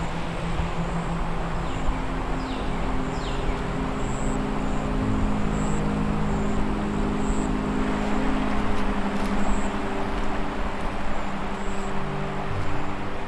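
Low droning soundtrack: sustained dark tones that shift slowly to new pitches every few seconds, under a faint hiss.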